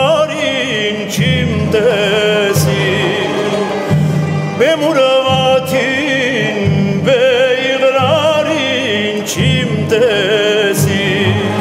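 A man sings a song with strong vibrato, accompanied by an Armenian folk-instrument orchestra of plucked zithers and lutes, bowed strings and double bass.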